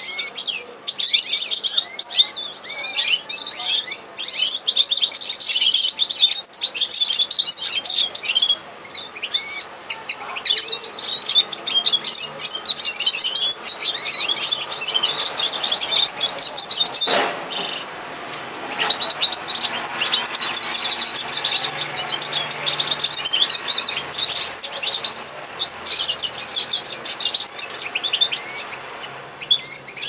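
Red siskin × canary hybrid singing: long phrases of rapid, twittering high notes, broken by a few short pauses. A single sharp knock comes about halfway through, during one of the pauses.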